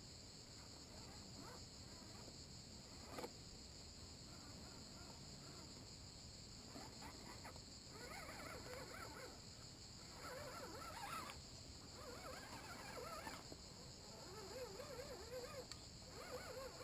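Insects buzzing steadily at a high pitch. From about halfway through, intermittent wavering whines of a second or so each join in, with short gaps between them.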